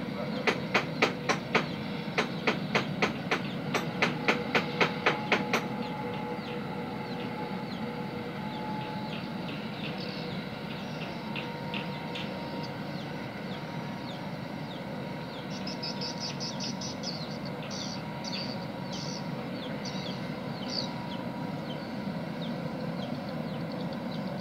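Distant steam power plant heard across a wide river: a steady industrial hum with faint steady tones. For the first five or six seconds a sharp rhythmic knocking, about three a second, rides over it; scattered high chirps come later.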